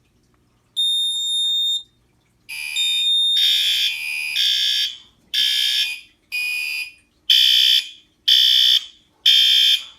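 Fire alarm horns sounding in loud repeated blasts, about one a second, in more than one pitch, set off by a demo test of an addressable fire alarm panel. A single steady high beep of about a second comes first, shortly after the start.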